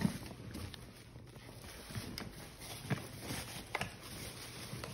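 Soft rustling of a towel and bedding being spread and tucked under a nursing manikin's hips, with a few faint knocks from handling the manikin.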